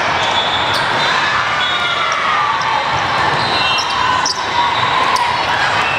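Volleyball tournament din in a large hall: sharp ball hits and bounces, from this rally and the courts around it, over a steady background of play and voices.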